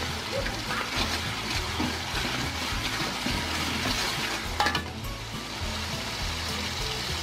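Ground chili, shallot, garlic and tomato spice paste sizzling in hot oil in a metal wok as a metal spoon stirs and scrapes it. A sharp knock comes about four and a half seconds in.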